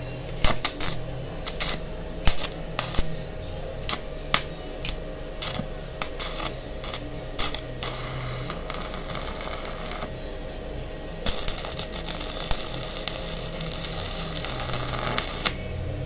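Stick welding with an inverter welding machine set to 150 amps: a run of sharp snaps and pops as the electrode is struck against the steel, then the arc crackling steadily for about four seconds and breaking off shortly before the end. A low, steady hum sits underneath. The machine is welding normally.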